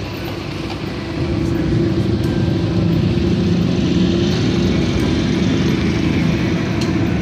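Motor vehicle engine running steadily, a loud low rumble that grows louder about a second in.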